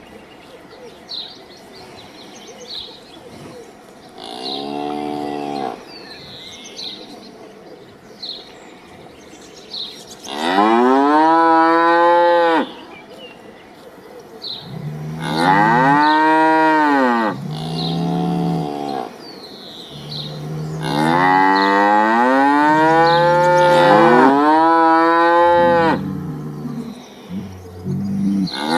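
Cattle mooing: about six long moos that rise and then fall in pitch, the later ones louder and two of them overlapping, with faint short chirps between the calls.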